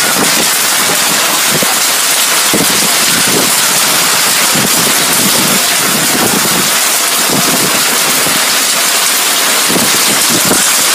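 Heavy storm rain pouring down in a steady loud hiss, with irregular low gusts of wind buffeting the microphone.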